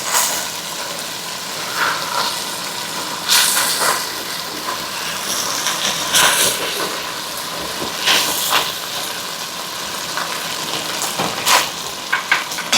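Beef steak and potatoes sizzling in a frying pan, a steady hiss, with a few short scrapes and knocks of a utensil turning the potatoes.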